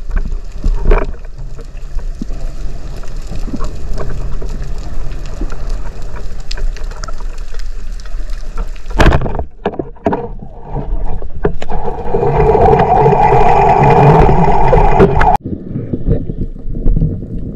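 Underwater sound through a camera housing: a muffled water rush with a few sharp knocks. About 12 s in, a louder steady rushing starts, then cuts off abruptly at an edit.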